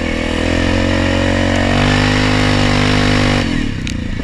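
ATV engine running under steady throttle, its pitch rising a little about halfway through, then falling away sharply near the end as the throttle is let off.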